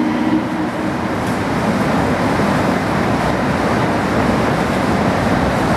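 KiHa 40 diesel railcar train running slowly into the platform: a steady noise of its diesel engine and wheels.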